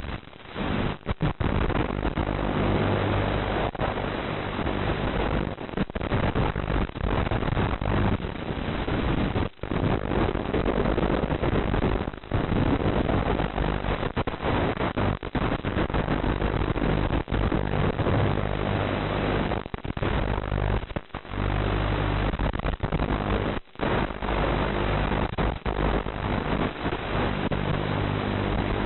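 Audio carried over an analog FPV video link and recorded by the goggles' DVR: a steady hiss with a low buzz under it, cutting out briefly many times.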